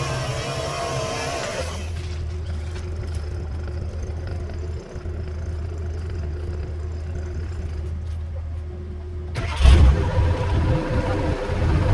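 A motor engine running steadily with a low, muffled hum. About three-quarters of the way through, a louder engine sound cuts in abruptly and keeps running.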